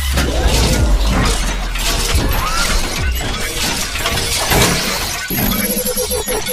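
Animated-intro sound effects: a dense, continuous crackle of sharp shattering hits over a low rumble, with a few steady tones joining near the end.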